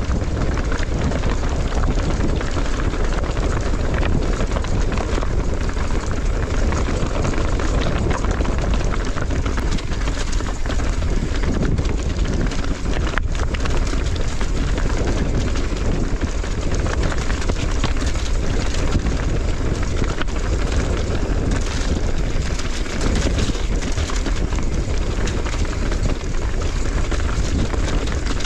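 Electric mountain bike ridden downhill with its motor switched off over a loose, rocky track: tyres crunching over stones and the bike rattling continuously, with steady wind noise on the microphone.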